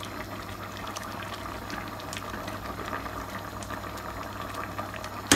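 Curry sauce boiling hard in a stainless steel pot on full heat, a steady crackling bubble and spit. There is one sharp knock near the end.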